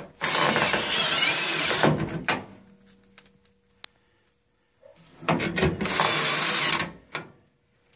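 Power drill/driver running sheet-metal screws through the galvanized single-wall vent pipe into the furnace's flue collar, securing the pipe back in place. It runs in two bursts, about two seconds and then about a second and a half, with a pause between them.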